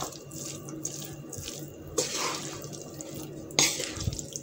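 Wooden spoon stirring and scraping cooked rice and diced vegetables around a nonstick frying pan: a rustling, wet-sounding mix with two sharper scrapes, about two seconds in and about three and a half seconds in.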